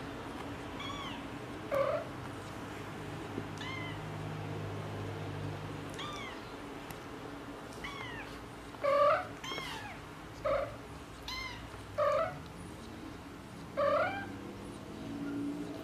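A cat meowing repeatedly: about ten short, high-pitched meows that rise and fall in pitch, fainter and spaced out at first, then louder and coming every second or so in the second half.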